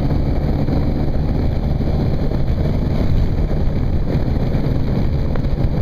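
Motorcycle cruising at steady highway speed: a constant engine drone under heavy wind rush on the microphone.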